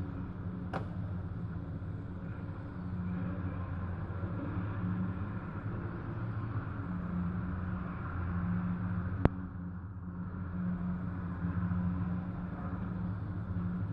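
Steady low rumble of demolition excavators' diesel engines and passing city traffic, swelling and fading, with one sharp click about nine seconds in.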